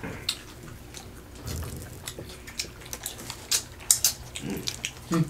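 Several people eating chicken wings and seafood boil with their hands: scattered sharp, wet clicks of chewing, lip-smacking and finger-licking at irregular intervals.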